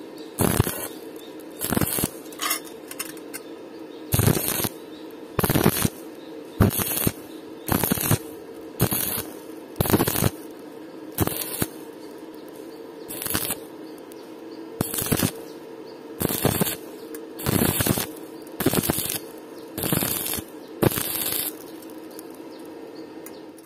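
Stick (SMAW) welding arc on rusty steel pipe crackling in short bursts, about one a second, as the electrode's arc is struck and broken again and again to lay the weld in stitches. A steady hum runs between the bursts.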